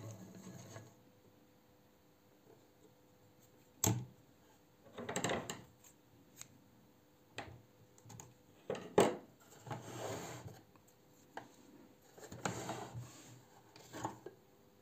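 Hands handling the bobbin winder and bobbin of a 1913 Singer 66 sewing machine: after a near-quiet few seconds, scattered small metal clicks and short rubbing, scraping sounds, the sharpest click about nine seconds in.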